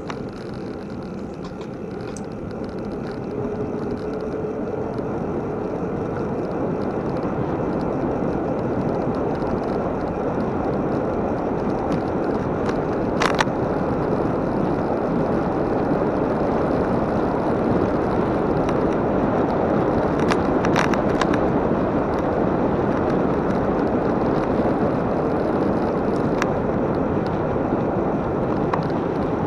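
Bicycle riding on a paved trail: steady rush of wind on the microphone and tyre noise, growing louder over the first several seconds as the bike picks up speed, then holding. A few sharp clicks are heard about halfway through and near the end.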